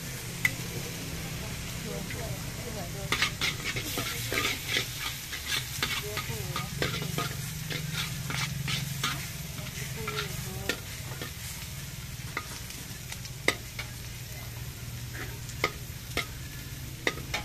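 Egg, greens and pork bits sizzling in a wok while a metal spatula scrapes and clanks against the pan. The clanks come thickest a few seconds in and grow sparser toward the end, over a steady low hum.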